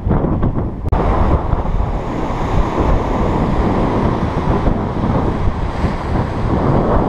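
Wind buffeting the microphone over small waves breaking and washing up a sandy beach, a steady rushing noise with a brief dropout about a second in.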